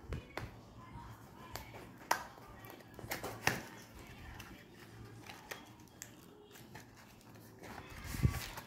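Small cardboard retail box being handled and opened, its inner tray sliding out of the sleeve: scattered light clicks, taps and scrapes of cardboard, with a louder bump near the end.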